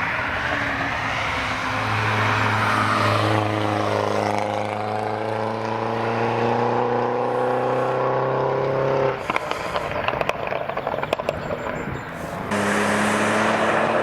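Car engine accelerating past on a race track, its note climbing steadily for several seconds. About two-thirds of the way through it gives way abruptly to a spell of irregular crackling, then a second engine note cuts in suddenly.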